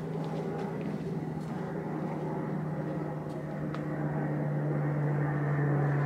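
A steady low engine drone at one constant pitch, growing gradually louder.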